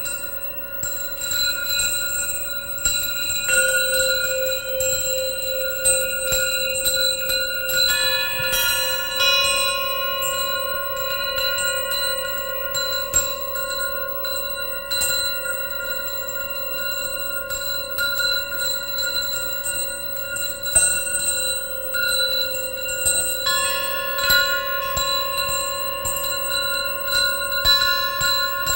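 Hanging acoustic metal instruments (metal rods, tubes and rings) struck and left ringing: a long, steady metallic drone on one low-middle pitch with bright bell-like overtones, and many light taps laid over it. The cluster of higher tones changes about eight seconds in and again a few seconds before the end.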